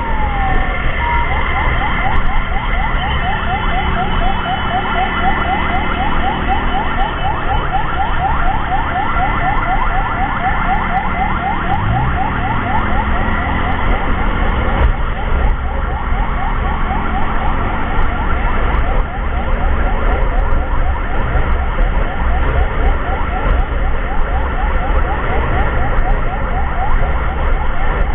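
Electronic emergency siren in a fast yelp, a quick rising sweep repeated several times a second, taking over from a slower wail about a second in, with steady tones from further sirens above it. Vehicle engine and road rumble runs underneath.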